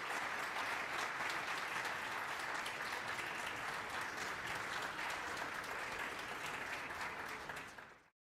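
Large audience applauding steadily, a dense patter of many hands clapping, which fades out and cuts off near the end.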